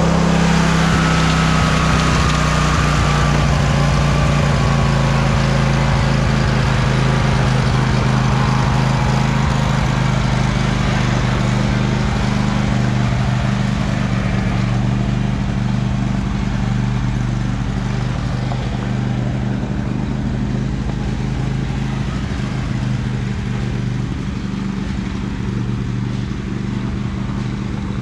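Riding lawn mower engine running steadily at a constant pitch, gradually getting quieter as the mower drives away.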